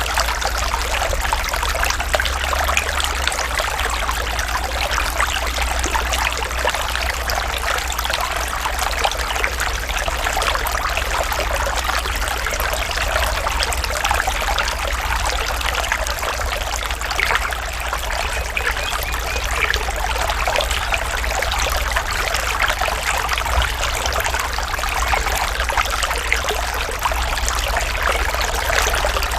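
Natural running water, a stream trickling and splashing steadily, with a steady low rumble underneath.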